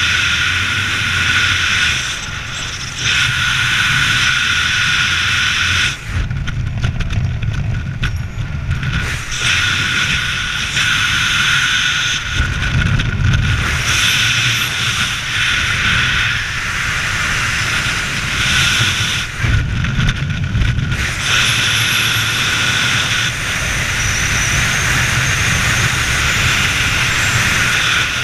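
Air rushing over the camera of a skydiver descending under canopy, a steady rush that swells and eases every few seconds with gusty low buffeting, over a thin steady high tone.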